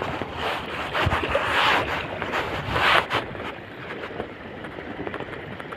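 Strong wind buffeting the microphone, gusting louder from about a second in until about three seconds, then steadier with faint small ticks.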